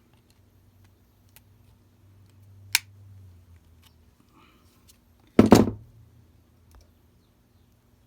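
Linesman pliers working three solid copper wires together: a sharp metallic click a little under three seconds in, then a louder half-second scrape and clatter about five and a half seconds in, with faint ticks of handling between.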